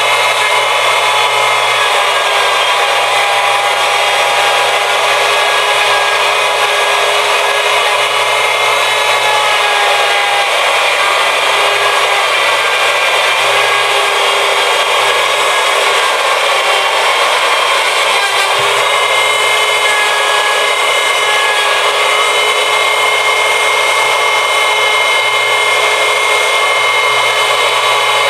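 Handheld wood router with a 1/2-inch straight bit running at full speed and routing out a black walnut slab in shallow passes: a loud, steady high whine with a slight change in tone about two-thirds of the way through.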